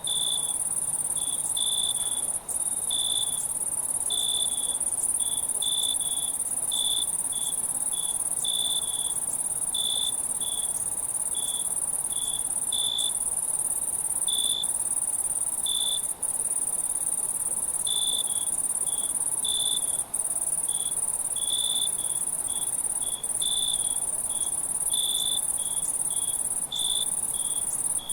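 Night insect ambience of crickets chirping: a steady high trill runs throughout, with separate short chirps repeating unevenly about one to two times a second. The sound dips out briefly a few times.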